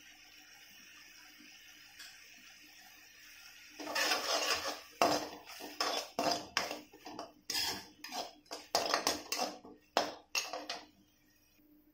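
Steel spatula scraping and clanking against a metal kadhai as spiced onion masala is stirred, in quick repeated strokes that start about four seconds in and stop near the end; before them only a faint steady hum.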